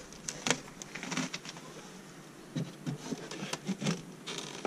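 Scattered light clicks and knocks, about a dozen at irregular intervals, as the vent plugs of a polyurethane-foam beehive's inner cover are pressed in and its foam lid is set back on.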